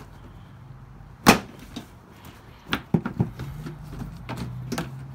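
Plastic clips of a Honda CR-V's front bumper cover snapping loose as the cover is pulled away from the body by hand. There is one loud snap about a second in, then a run of smaller clicks and knocks.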